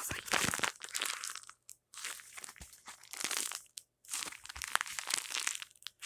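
Homemade squishy squeezed and crushed close to the microphone, crinkling and crunching in several bursts with short pauses between them.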